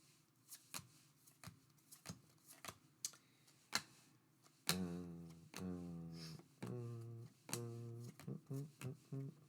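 Trading cards being handled and flipped, a series of light clicks and snaps. About halfway in, music takes over: about five low sustained notes at a steady pitch, starting roughly once a second.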